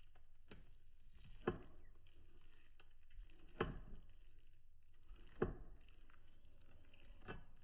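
Five sharp knocks or clicks, spaced one to two seconds apart, over faint steady background noise.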